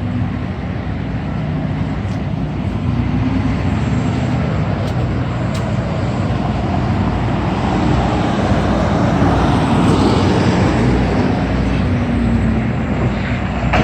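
Steady rumble of heavy motor vehicle engines with outdoor traffic noise, slowly swelling louder about two-thirds of the way through.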